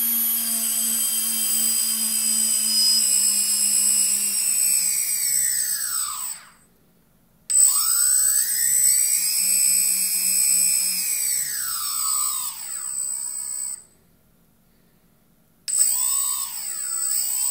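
Quadcopter brushless motors spinning without propellers under Arduino throttle control, making a high electric whine whose pitch falls, rises and falls again with the throttle. Twice the whine drops away to near silence for a second or two, then starts again abruptly and climbs.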